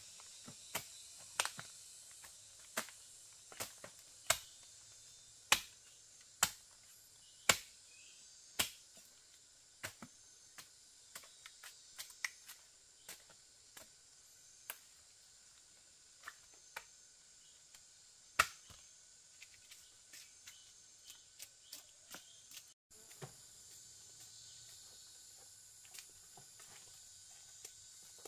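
A steady high insect drone with irregular sharp snaps and knocks over it. The loudest snaps come about once a second in the first nine seconds, then there is a single loud one later and softer ones in between.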